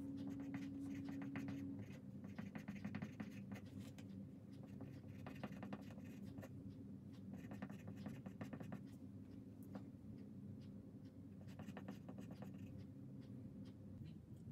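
A pencil writing on a small sheet of paper on a desk: quick, irregular scratching strokes in short runs with brief pauses between, over a faint low hum.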